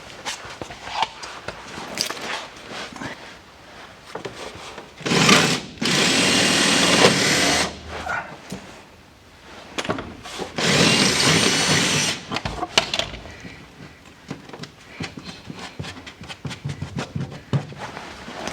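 Electric drill running in two steady bursts, the first of about two and a half seconds and the second of about a second and a half, enlarging a pilot hole through the bottom of an air filter box. Scattered clicks and knocks of handling come between the bursts.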